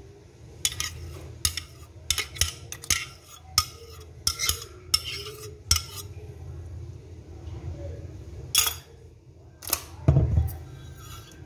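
Metal spoon scraping and clinking against a glass bowl in a quick run of sharp clinks as thick mango custard is scraped out of it. A couple of further clinks follow, then a dull knock near the end.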